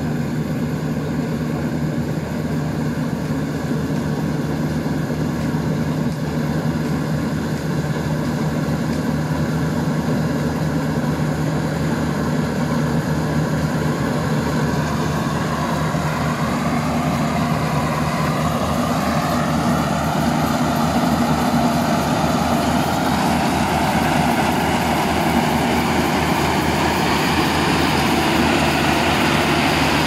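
Yanmar YH700 rice combine harvester running steadily as it cuts standing rice. Its engine and machinery grow louder and brighter through the second half as it comes close.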